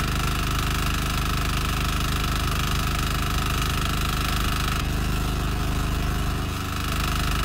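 Single-cylinder air-cooled diesel engine of a mini tiller running steadily with a knocking clatter as its rotary tines dig into the soil. The engine dips briefly about six and a half seconds in.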